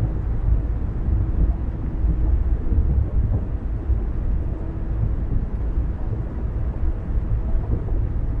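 Car driving at a steady speed: a low, even rumble of tyres on the road and engine.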